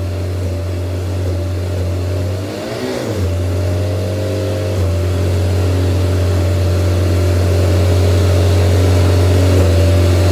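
Viking aircraft engine, a liquid-cooled inline four-cylinder, running steadily on its first run while it warms up to temperature, with a brief wobble in pitch about three seconds in.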